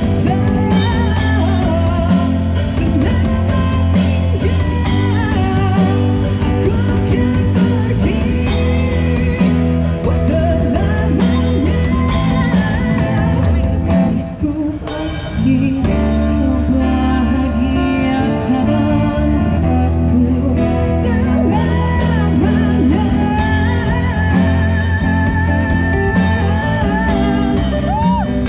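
Amplified street busking performance: a singer with acoustic guitars and a steady low bass line, with a brief drop in the music about halfway through.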